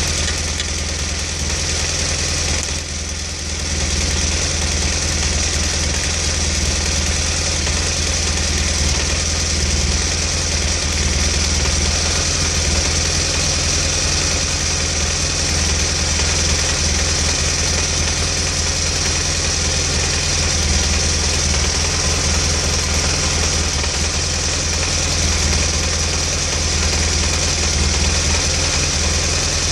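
BMW GS motorcycle engine idling steadily, briefly dipping in level about three seconds in.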